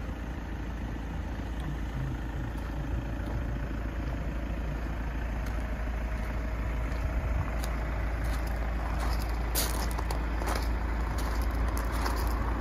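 A steady low rumble, with short crunching steps on gravel coming in about seven seconds in.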